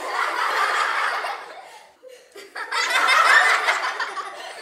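A group of young children laughing together in two swells, with a short break about two seconds in.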